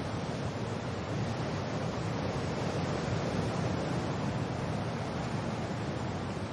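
Wind and rain: a steady, dense rushing noise that swells slightly around the middle.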